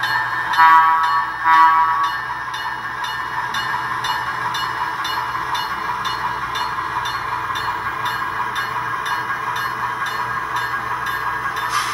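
A SoundTraxx Tsunami2 sound decoder in a model ALCO RS-1 diesel locomotive plays a running diesel engine with a steady beat through the model's small speaker. About half a second in come two short horn blasts.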